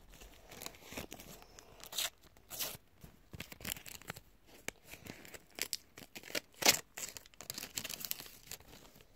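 Sticker packet being torn open and crinkled by hand: a run of irregular tearing and rustling noises, the loudest about two-thirds of the way through.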